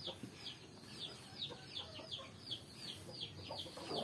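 Bird chirping: a steady run of faint, high, falling chirps, about three a second.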